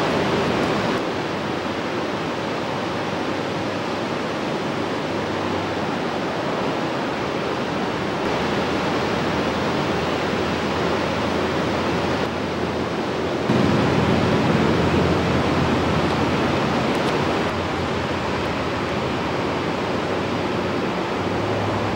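Pacific Ocean surf breaking and washing up the beach, a steady rushing noise. It drops a little about a second in and gets louder about halfway through.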